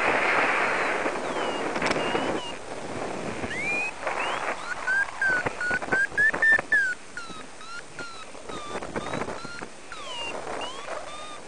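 Wind rushing over the microphone for the first couple of seconds, then a paragliding variometer beeping: a string of short high beeps in the middle, stepping up and down a little in pitch, signalling that the glider is climbing in lift.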